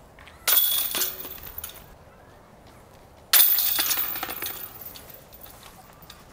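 Two disc golf putts striking the chains of a metal basket. Each is a sudden clash of jingling chains that rings out for about a second, the second about three seconds after the first.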